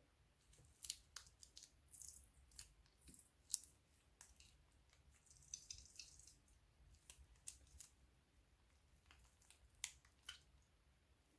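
Sparse, sharp crackles and clicks at irregular intervals, with a short denser run of crackling about halfway through, from crunchy slime and plastic piping bags being handled.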